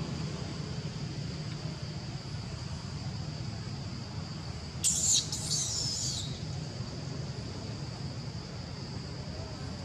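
Outdoor ambience: a steady high-pitched hum over a low rumble. About five seconds in, a short burst of high, squeaky animal calls sweeps up and down for about a second and a half.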